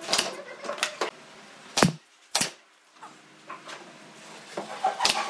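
Several sharp knocks on wood at an irregular pace, the loudest a little under two seconds in.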